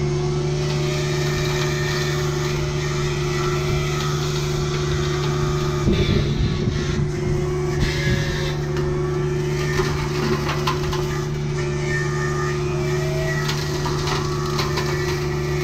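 Kubota U55 mini excavator running with an MTL XC5 brush cutter head spinning, a steady mechanical hum. About six seconds in, a rough, louder stretch of knocking and chopping lasts a couple of seconds as the cutter bites into brush.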